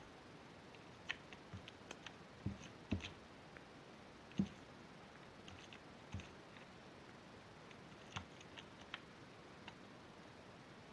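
Scattered small clicks and soft taps of handling noise over a faint steady hiss, the loudest tap about four seconds in.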